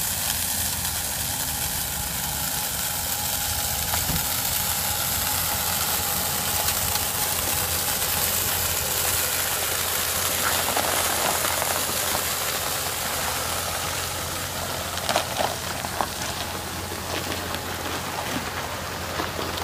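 Pickup truck engine running steadily at idle, with a constant hiss over it and a few scattered ticks and knocks about halfway through and again around three quarters in.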